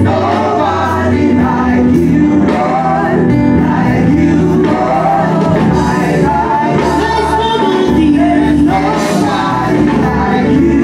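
Gospel choir singing with a band playing, at a steady loud level.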